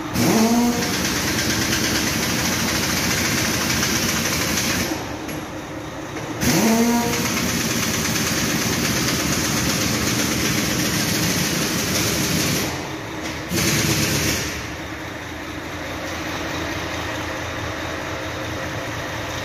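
A motor-driven machine spins up with a rising whine and runs with a loud, steady rushing noise. It drops away about five seconds in and spins up again the same way a second later, dies down past twelve seconds, surges briefly once more, then runs on at a lower level.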